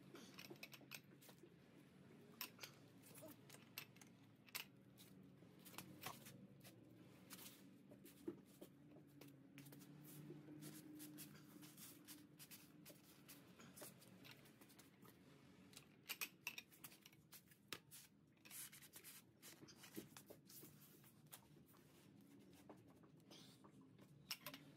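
Near silence, with faint scattered clicks and light ticks of a breaker bar and socket being worked on tight lug nuts.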